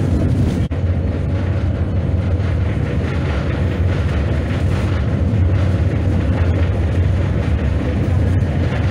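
Tram running along its track, heard from inside the car: a steady low rumble with the noise of wheels on rails. The sound drops out briefly under a second in.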